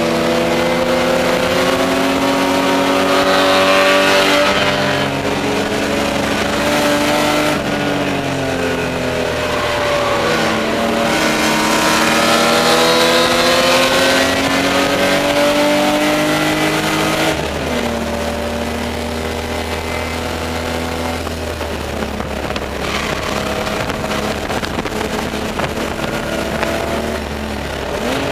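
Spec E30 BMW race car's straight-six engine heard from inside the stripped cabin, revving up and down under racing load as the driver changes gear. The note falls off sharply about two-thirds through to a lower, steadier drone, then climbs again at the end.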